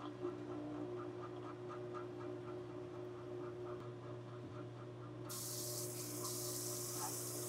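Factory machinery in a vinyl record pressing plant: a steady low hum with a light ticking about three times a second. About five seconds in, a strong hiss starts suddenly and keeps going.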